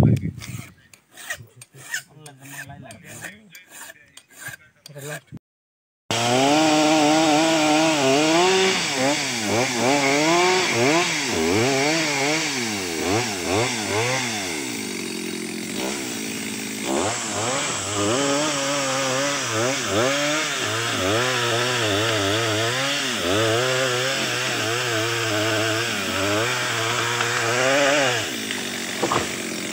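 A round file rasping on a chainsaw chain in quick, repeated strokes for about five seconds. Then, after a short break, a two-stroke chainsaw runs and cuts into a tree trunk, its engine pitch rising and falling as the cut loads it, and easing off near the end.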